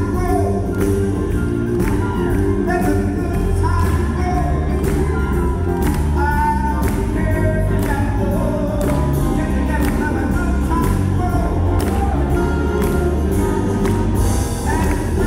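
A male singer singing live into a microphone, backed by a big band with drums keeping a steady beat, amplified through a concert hall's sound system.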